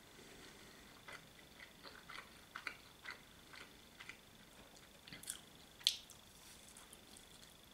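A person chewing a mouthful of mushroom and cheese pizza, faint wet clicks of the mouth every so often, then biting into the slice about five to six seconds in, with a sharp click of the bite as the loudest sound.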